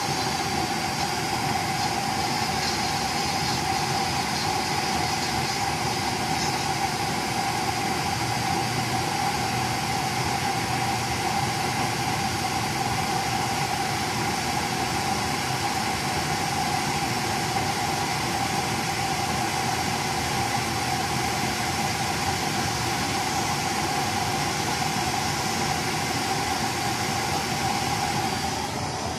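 Used-oil stove burner running with its electric blower on: a steady rush of forced air and flame with a constant whine, fed by oil dripping in at about one drop a second.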